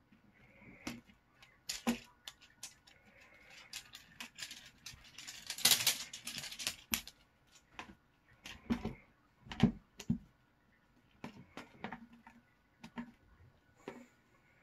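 Kitten playing on a cardboard box and scratcher: irregular sharp taps and clicks of claws, paws and a wand toy's stick on cardboard, a burst of scratching about six seconds in, and a few dull thumps around nine to ten seconds.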